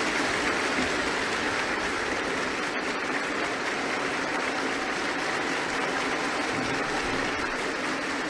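Sustained applause from a chamber full of lawmakers, holding steady throughout.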